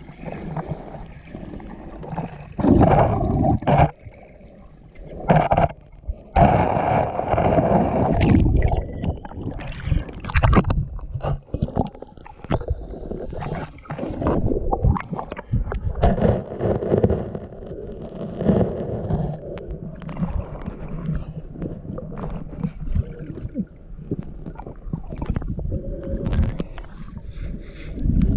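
Muffled underwater water noise picked up by a camera held underwater: water gurgling and rushing around it in uneven surges as the snorkeler swims, with louder rushes of a second or two and scattered sharp knocks.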